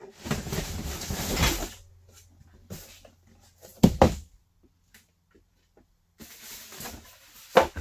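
Cardboard box and metal parts of a drywall hoist being handled while it is unboxed: a long scraping rustle at the start, a sharp knock near the middle, and more rustling ending in a loud knock.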